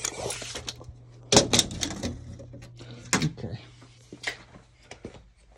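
Irregular sharp clicks and knocks of something being handled, the loudest about a second and a half in, with a brief rustle at the start, over a steady low hum.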